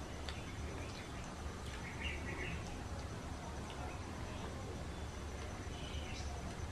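Quiet eating sounds: chewing and lip smacks, with scattered soft clicks of fingers working rice and curry on a banana leaf. A low steady hum lies under them.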